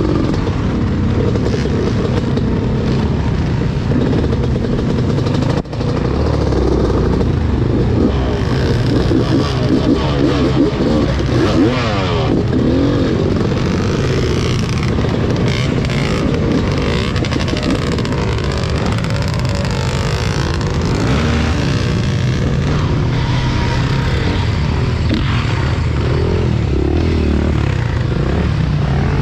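Dirt bike engine running under way on a rough trail, its pitch rising and falling with the throttle, with other off-road engines close by. The loudness dips briefly about six seconds in.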